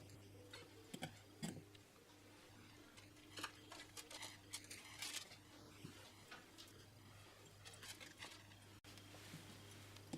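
Faint scrapes and soft clicks of cookie dough being scooped and set onto a baking tray, a few scattered touches over a steady low hum.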